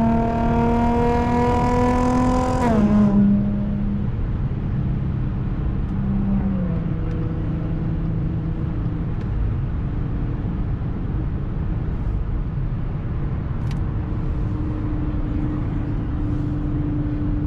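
Supercharged V6 of a 2012 Audi S4 with an AWE Touring exhaust, pulling with a slowly rising note for about three seconds. The note then drops sharply and settles into a lower, steady cruising drone over road noise.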